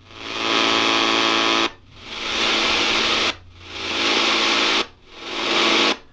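FM radio static, a steady hiss with a buzz under it, from the Choyong A8W's small built-in speaker, cutting out for a moment three times as the skip button steps to the next preset station. These are stations the radio isn't pulling in, with poor reception and no external aerial.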